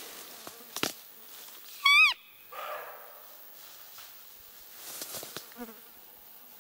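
A roe deer call sounded once, about two seconds in: a single short, loud, high squeak that rises and then falls in pitch. It imitates a doe's call to lure a rutting roe buck. Faint rustling and a click sit around it.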